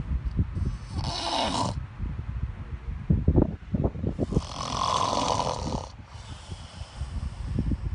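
A man snoring in his sleep: a short noisy breath about a second in, a rattling snore, then a longer noisy breath of about a second and a half.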